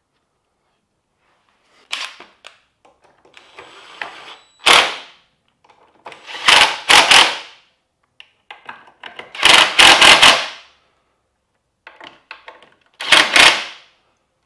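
Cordless impact driver driving in bolts, in several short bursts of rapid hammering as each bolt is run down and snugged tight. Quieter clicks and rattles of the bolts and tool being handled come in between.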